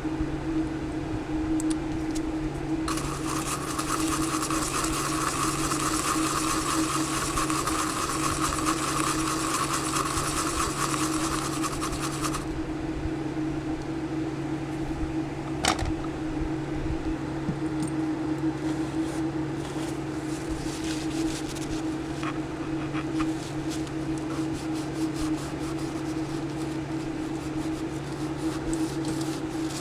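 Solder flux being cleaned off a circuit board: a steady hiss starting about three seconds in and lasting about ten seconds, then faint, irregular rubbing and scratching, over a steady low hum.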